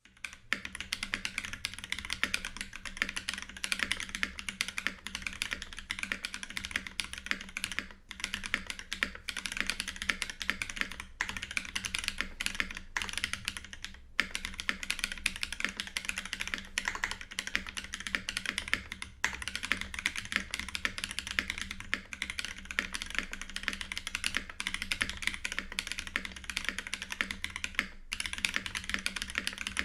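Continuous typing on an Iron165 mechanical keyboard with a brass plate, fitted with Yok Mint Holy Panda tactile switches lubed with Tribosys 3204 and capped with GMK Honeywell keycaps: a steady stream of keystroke clacks broken by a few short pauses.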